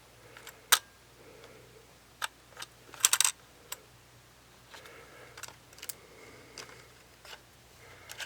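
Scattered small clicks and taps of a tool and fingers handling a Nikon D5500 DSLR body during disassembly, with a quick cluster of clicks about three seconds in and softer ticks later.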